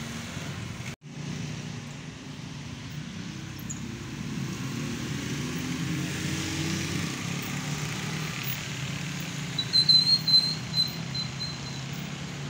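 Steady low mechanical hum that cuts out briefly about a second in, with a short high chirp near the end.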